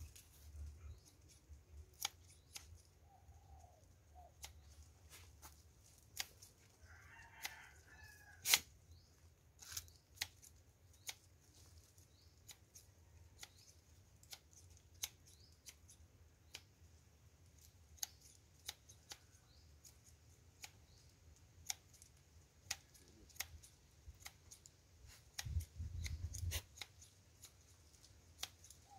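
Quiet yard ambience: faint, irregular sharp clicks throughout, the loudest about eight seconds in, over a faint steady high hiss. A brief distant animal call comes about seven seconds in, and a short low rumble comes near the end.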